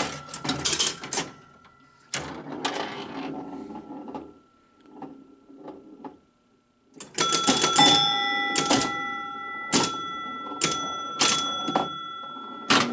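Gottlieb Airport electromechanical pinball machine in play: relays and stepper units clicking and clattering as one ball ends and the next is served. From about seven seconds in, a fast run of clacks with scoring chimes ringing.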